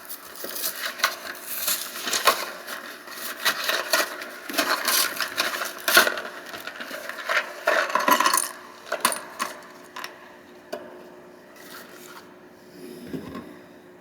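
A small cardboard LEGO minifigure box being opened and its contents handled: rapid crackling, tearing and small hard clicks. Busiest for the first eight seconds, then sparser and quieter.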